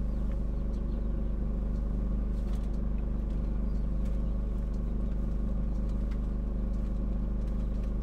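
Generator engine running steadily with a low, even drone. A few faint clicks sound over it.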